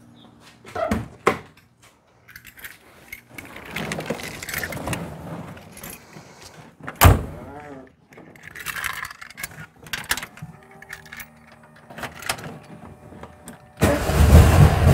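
Getting into a 1956 Volkswagen Beetle: a car door shutting with a sharp thump about seven seconds in, and keys jangling. Near the end the Beetle's air-cooled engine starts and runs loudly.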